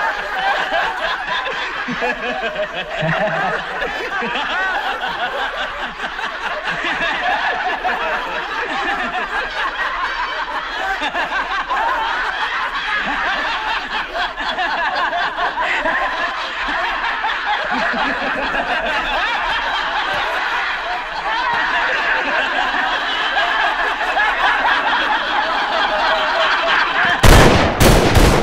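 A group of men laughing loudly and at length. Near the end, a quick volley of pistol shots cuts in, the loudest sound.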